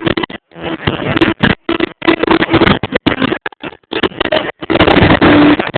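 Fireworks display: a dense run of bangs and crackling bursts, loud enough to overload the recording, which keeps cutting out abruptly.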